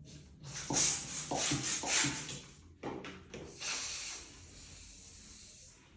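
Hand pump inflating a 260 modelling balloon: several quick hissing strokes of air, then one longer stroke near the end.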